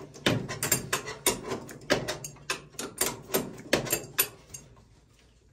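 Irregular metal clicks and clinks of tools and oil-burner parts being handled during reassembly of the burner, a few knocks a second, dying away near the end.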